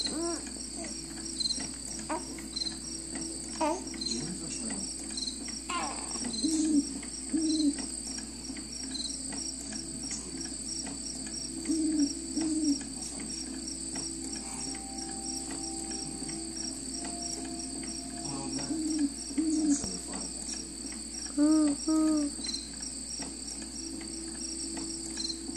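Crickets chirping steadily in an even, repeating high-pitched pattern. A baby's short coos and fussing sounds break in over it several times, and they are the loudest sounds.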